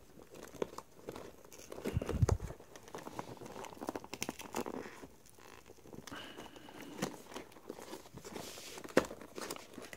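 Hands handling and rubbing a cardboard-backed plastic blister package: soft crinkling and scraping with scattered small taps and a couple of louder knocks.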